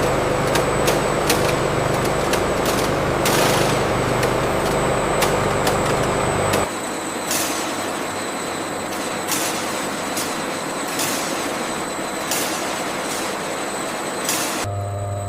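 Industrial machinery running steadily, with repeated short hisses and clicks. About halfway through, the heavy low rumble drops away abruptly, leaving a lighter, thinner machine sound.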